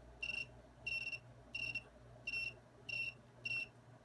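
Short high-pitched chirps repeating at a steady pace, about three every two seconds, over a faint low hum.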